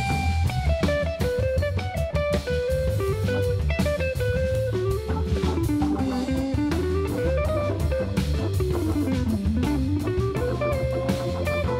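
Live jazz trio of electric guitar, Hammond organ and drums: a hollow-body electric guitar plays a single-note melodic line over a steady low bass line and drums with cymbals.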